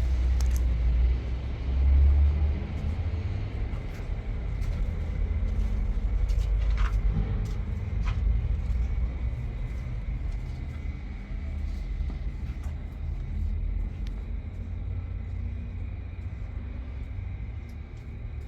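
Vehicle on the move, a steady low rumble that eases off slightly near the end, with a few faint clicks and knocks.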